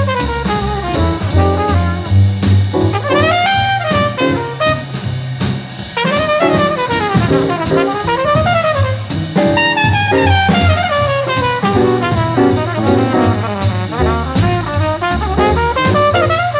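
Hard bop jazz: a trumpet solo in quick runs that rise and fall, over a walking bass line and drums keeping time on the ride cymbal.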